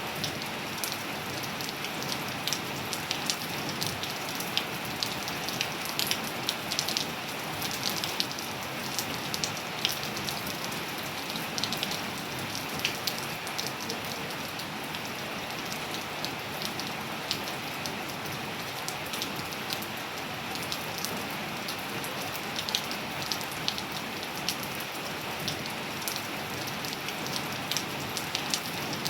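Steady rain falling on surfaces, a continuous hiss with many close, distinct drop ticks and splats.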